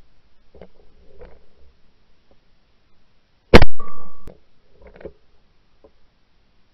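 A single loud shot from a 28-gauge shotgun about three and a half seconds in, with a short echo dying away after it.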